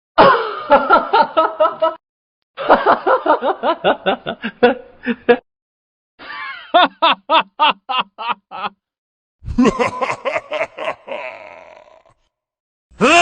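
A series of separate sound-effect clips of men laughing, each cut off by a short silence. There are four distinct laughs, each a run of rhythmic 'ha-ha' pulses, and a fifth begins at the very end.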